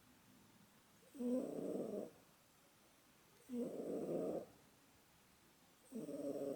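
Domestic cat snoring: three snores about two seconds apart, each lasting about a second.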